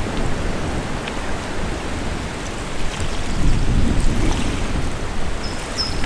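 Outdoor ambience: a steady rushing noise with gusty low rumbling, swelling a little past the middle.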